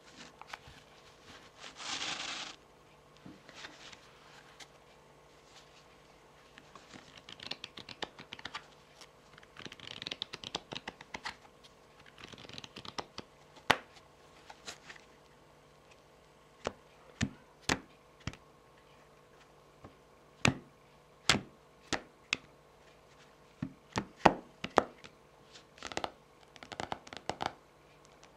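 Deck of tarot cards handled by hands with long fingernails: a short shuffle about two seconds in, then soft rustling and sliding of the cards, then sharp irregular clicks of the nails tapping on the cards, coming more often near the end.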